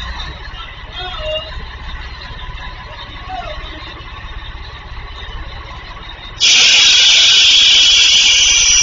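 Scania truck's diesel engine running low and steady as it creeps through a tight turn. About six seconds in, a loud hiss of compressed air from the truck's air brakes starts suddenly and runs on for about three seconds.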